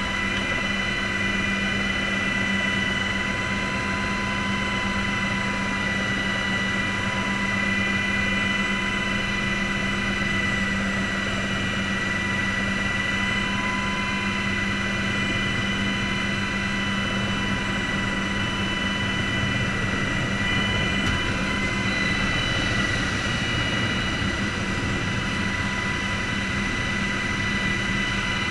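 Aircraft turbine engines and rotors running steadily inside the cockpit, a constant high whine over a deeper drone.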